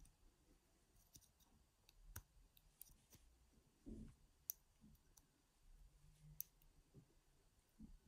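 Faint, scattered clicks of a homemade bra-underwire pick and tension tool working the pins inside a Papaiz padlock, with a soft low thump about four seconds in.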